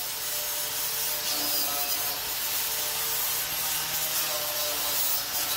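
Handheld angle grinder grinding the steel of a car hood hinge, throwing sparks: a steady rasping grind with a faint high whine.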